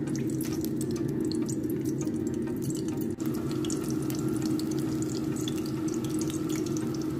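Flour-battered stuffed tofu (tahu isi) sizzling in hot oil as it starts to fry, with dense crackling pops over a steady low hum.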